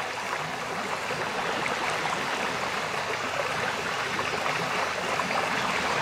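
Steady running, trickling water, even and unbroken.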